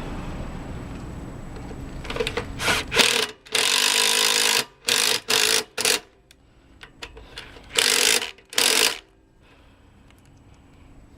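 Cordless drill-driver running in short bursts, one about a second long and several shorter blips, driving screws to fasten the air cleaner housing back onto the mower engine.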